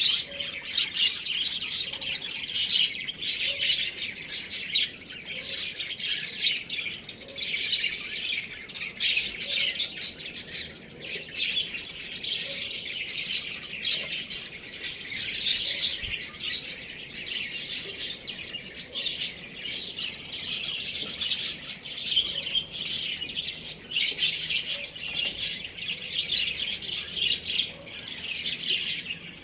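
Many small birds chirping and chattering together in a continuous, busy stream of short high-pitched calls.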